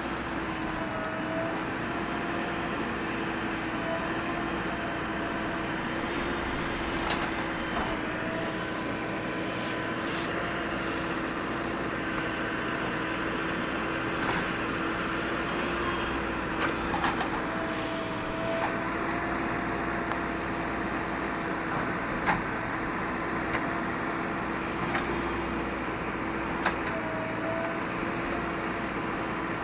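A JCB backhoe loader's engine running steadily with a constant hum, and a few sharp clicks or knocks scattered through it.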